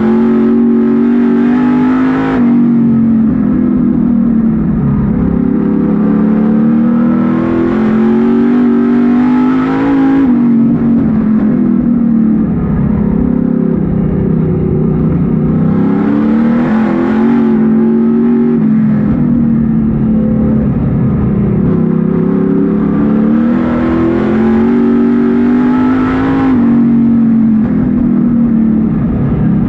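Street stock race car's engine heard from inside the cockpit, revving up down the straights and easing off into the turns. Its pitch rises and falls about four times.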